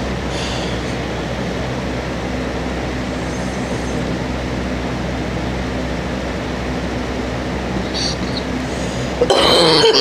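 A steady mechanical hum, like a fan running, fills the room. Near the end comes a single cough about a second long, from a woman sick with a cold.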